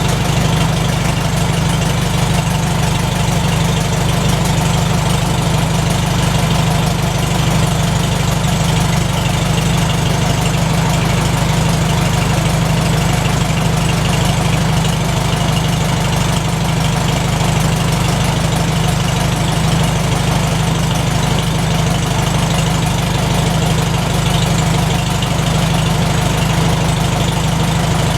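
McCormick-Deering W-4 tractor engine idling steadily with an even low beat.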